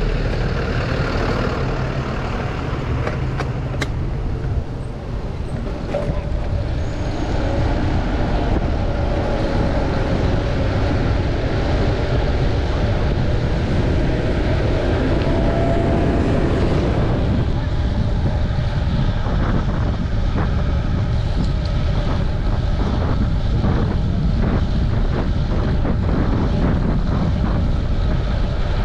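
City street traffic heard from a moving bicycle: a steady rumble of passing cars and trucks, with wind buffeting the microphone. Through the middle a drawn-out tone wavers and slowly rises.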